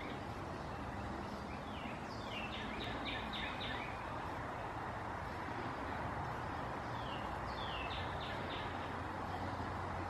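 Carolina wren singing two short phrases, each a few falling notes and then a quick run of repeated notes, about two seconds in and again about seven seconds in, over a steady low background rumble.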